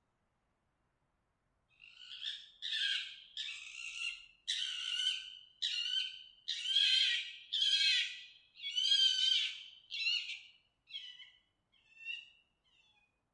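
Fox giving its mating call: a string of about a dozen harsh, hoarse screams, each about half a second long, starting about two seconds in and growing shorter and fainter toward the end.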